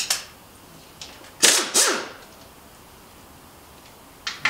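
Pneumatic air tool fired in short hissing bursts: one at the start, two louder ones close together about a second and a half in, and another near the end.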